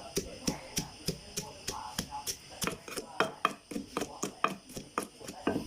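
Pestle pounding chillies and garlic in a mortar, a steady rhythm of about three to four strokes a second, grinding the paste fine for a dipping sauce.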